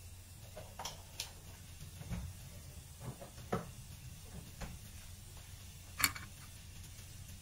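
Milk-based white sauce simmering in a frying pan: scattered soft pops and blips from bubbles bursting, the sharpest about six seconds in, over a low steady hum.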